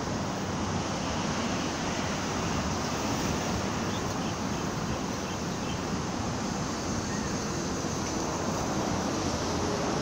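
Steady rushing hiss of wind on the microphone, even throughout, with no distinct knocks or calls standing out.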